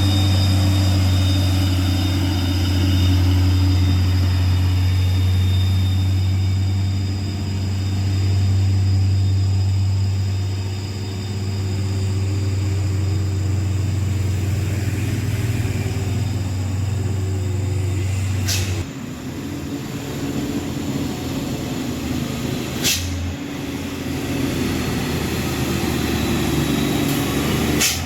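Heavy diesel truck engine labouring under load on a steep climb, a deep steady drone that drops away about two-thirds of the way through. Three short sharp clicks in the second half.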